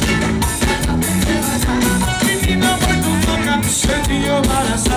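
Live forró band playing loudly through the PA, with a male lead singer's vocals over bass and drums, recorded from within the crowd.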